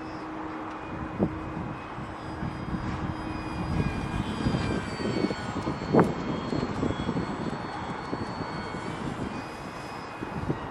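Electric motor and propeller of a Durafly Tundra V2 RC plane in flight, a thin high whine that drifts slightly in pitch as the plane flies around. Wind buffets the microphone in low rumbling gusts, with a sharp thump about six seconds in.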